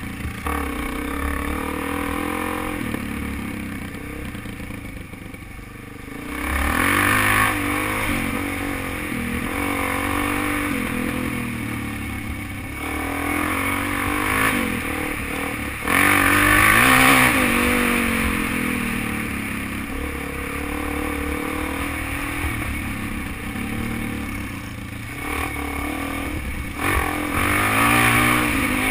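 Suzuki DRZ400 single-cylinder four-stroke dirt bike engine heard from on the bike, its pitch rising and falling as the rider works the throttle over a dirt trail. It gets louder in acceleration surges about a quarter of the way in, past the middle, and near the end.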